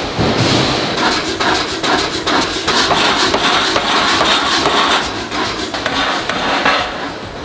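Forge-shop hammering: rapid metal-on-metal strikes, several a second, over a steady noisy din.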